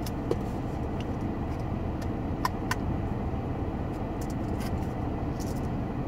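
Steady low hum inside a parked car's cabin. Two sharp clicks come about two and a half seconds in as a new cologne bottle's spray pump is worked, and short faint hisses follow near the end: the sprayer is stiff because it has never been used.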